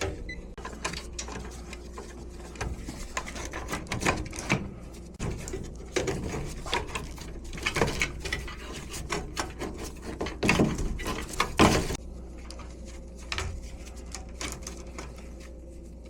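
Irregular clicks, knocks and rattles of hands working on HVAC equipment while shutting off its power, busiest near the middle and stopping about twelve seconds in, leaving a faint steady hum.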